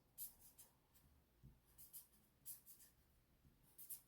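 Faint scratching of writing by hand: a handful of short, separate strokes against near silence.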